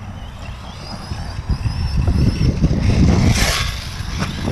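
Electric RC car driving on a dirt track: a thin motor whine that wavers up and down in pitch over the first couple of seconds. About three seconds in comes a short gritty hiss like dirt being thrown up, over low buffeting rumble.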